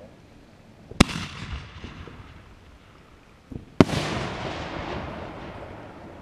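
Two aerial firework shells bursting: a sharp bang about a second in and a louder one near the middle, each followed by a long rumbling echo that slowly fades. A softer thump comes just before the second bang.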